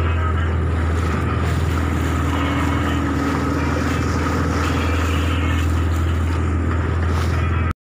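Pongrass runabout under way over choppy water: the engine runs steadily, with wind noise on the microphone. The sound cuts off abruptly near the end.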